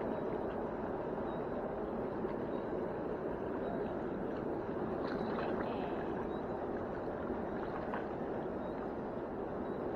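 Steady rushing of fast-flowing river water, with a couple of faint ticks about halfway through.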